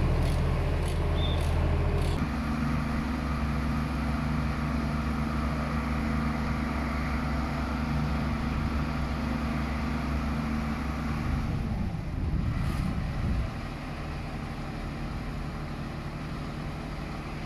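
Heavy diesel engine idling steadily. Its note drops about two seconds in, wavers between about eleven and thirteen seconds in, then settles quieter.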